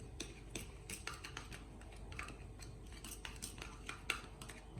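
A spoon stirring a thick soy-and-oyster sauce in a small bowl: faint, irregular clicks and scrapes of the spoon against the bowl, a few a second.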